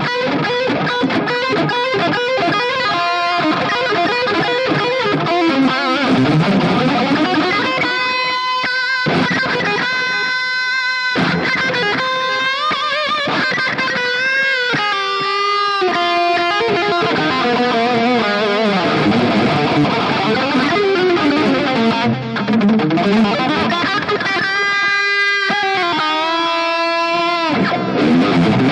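Distorted Ibanez electric guitar played through a Mooer GE200 amp-modelling multi-effects unit: fast shred runs of rapid picked notes. Twice the runs give way to held notes that step downward with vibrato.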